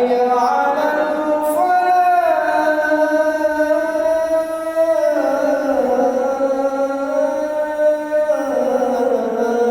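A muezzin's unaccompanied voice sings the adhan in the Kurdi maqam with no added echo or effects, holding one long melismatic phrase. The pitch rises about two seconds in, then steps down about five seconds in and again near the end.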